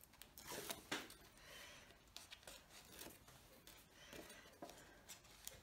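Faint rustling and rubbing of a sheet of striped designer paper being handled and bent by hand, with a few light clicks and ticks.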